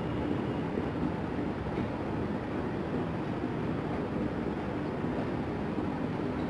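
Steady room tone: a low hum with a faint hiss, unchanging throughout.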